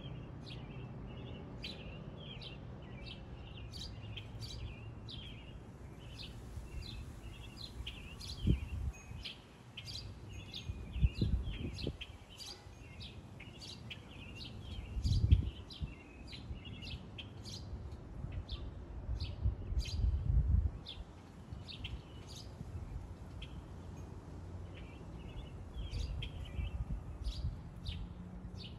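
Small birds chirping, with short high chirps repeated about twice a second throughout. Several brief low rumbles come through over them; the loudest are about a third of the way in and about halfway through.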